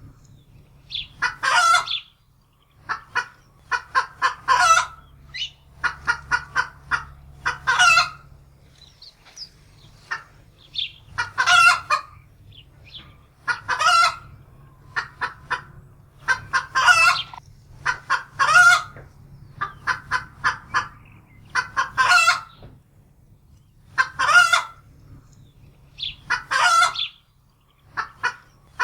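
Domestic hen cackling in alarm: runs of short clucks, each building to a loud drawn-out squawk, repeating every two to three seconds.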